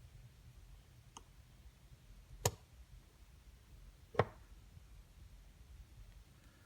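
Two sharp clicks about a second and a half apart, with a fainter tick before them: small hard parts knocking as the opened vape mod is handled on the bench. A faint low hum runs underneath.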